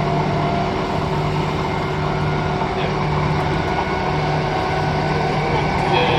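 Interior running noise of a Transperth A-series electric multiple unit: a steady rumble with a constant electrical hum and several unchanging tones, and a low hum that pulses on and off about once a second.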